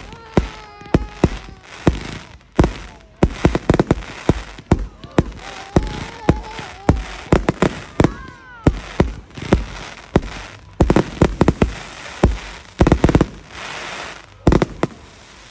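Fireworks going off: a dense, irregular barrage of loud bangs and cracks, several a second, with a few gliding tones between them.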